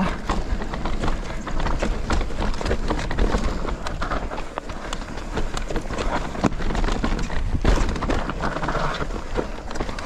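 Electric mountain bike riding down a rough, technical dirt trail, heard close to the bike: tyres rolling over dirt and roots, with frequent sharp knocks and rattles from the bike over a steady low rumble.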